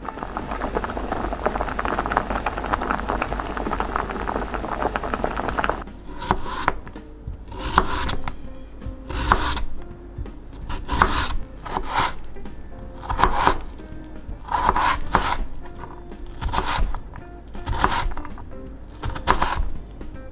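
About six seconds of continuous rustling, then a kitchen knife slicing through a peeled raw potato on a cutting board: a series of separate cutting strokes, roughly one every second or so.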